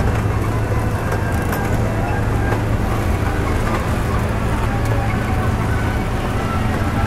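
Miniature ride train rolling along its track: a steady low rumble and hum from the cars and running gear.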